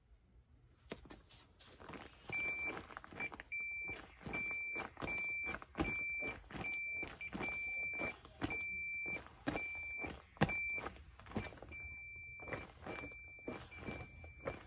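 Multimeter continuity beeper giving a string of short, high, single-pitch beeps, about one a second, as the seat is pressed down and the seat safety switch closes the circuit: the switch is working. Creaks and knocks of the seat cushion being pushed come between and under the beeps.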